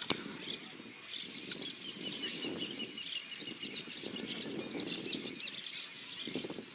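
Songbirds singing outdoors, with many short chirps and quick trills, some rising and falling in pitch. An uneven low rumble runs underneath.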